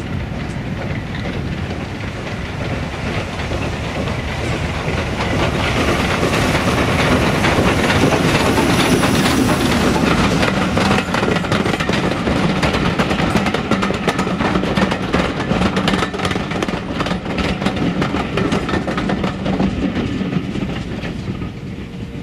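Steam-hauled passenger train passing close by. Its rumble swells to a peak, and the carriage wheels then give a run of rapid clicks over the rail joints. The sound fades as the last coaches go by near the end.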